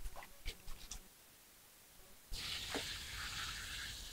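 Water poured from a small plastic bowl into a plastic basin of melon seeds, a steady pour starting a little past halfway. Before it, a few light knocks of plastic bowls being handled.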